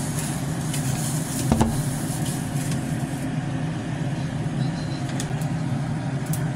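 A steady low mechanical hum, with a metal strainer ladle knocking once against an aluminium pot about one and a half seconds in and a few fainter clicks.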